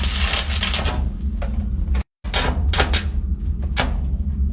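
Steady low drone of the ship's machinery below decks, with a hiss in the first second and several sharp metallic knocks and clanks from the bolt repair. The sound cuts out for a moment about two seconds in.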